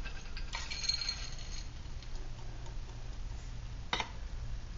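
Small lumps of wood-pellet charcoal poured from a small plastic bottle into a shallow metal dish: a light clinking rattle lasting about a second, then a single click near the end.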